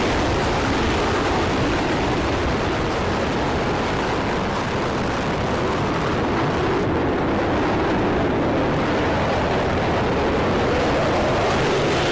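Jet engine noise of F-15E Strike Eagles taking off and climbing out: a loud, steady rumbling roar. The higher part fades about seven seconds in and comes back strongly near the end as another jet climbs out close by.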